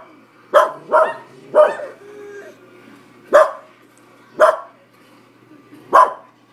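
A dog barking sharply six times: three quick barks close together, then three more spaced a second or so apart. It is barking at another dog on a screen.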